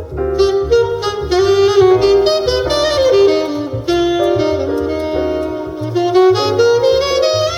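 Jazz trio recording, a saxophone melody over low upright bass notes, played back loud through a Mercedes C-Class W205's Burmester surround sound system and heard inside the car's cabin.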